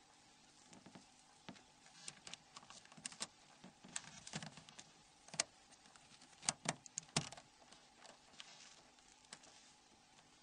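Faint, scattered small clicks and taps of plastic phone housing parts being handled and pressed together as the antenna assembly is fitted into its cover frame. The loudest few come between about five and seven seconds in.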